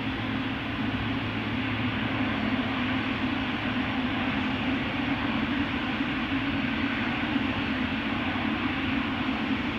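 Wide-body jet airliner engines running at taxi idle: a steady, even hum with a strong low drone, with no rise or fall in power.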